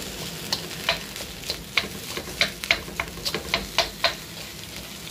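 Egg fried rice sizzling in a hot pan as it is stirred and tossed. A utensil scrapes and knocks against the pan in sharp, irregular clicks, two or three a second, over a steady sizzle.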